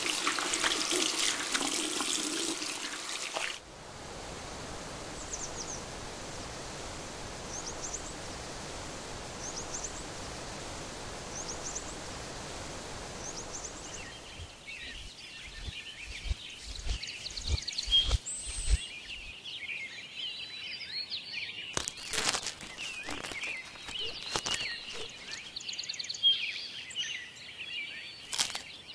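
Water running from a wall tap onto hands during ablution, cutting off about three and a half seconds in. A steady hiss follows with a high bird chirp repeated every second or so, then from about halfway many birds chirping outdoors, with a few low thumps and sharp knocks.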